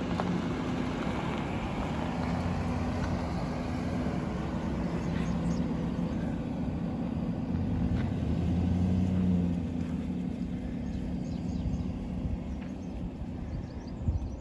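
Chevrolet Silverado's 5.3-litre V8 running steadily with a low hum. It gets louder for a moment about eight to nine and a half seconds in, then settles back down.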